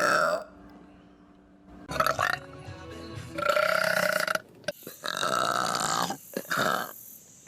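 A series of human burps from different clips. Two are long and drawn out, each about a second long, and shorter ones come about two seconds in and near the end.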